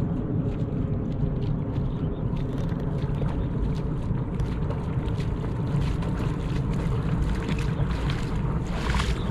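Steady wind rumble on the microphone, with the splashing steps of someone wading through shallow water, becoming more distinct from about two seconds in.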